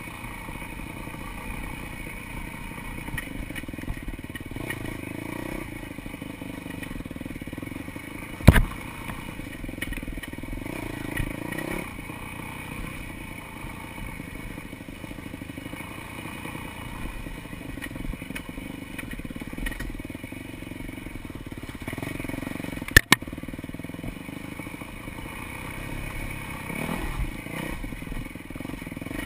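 Dirt bike engine running at low speed while picking its way over a rough, rocky trail, with rattling from the bike. A sharp knock comes about eight seconds in and a quick double knock later on.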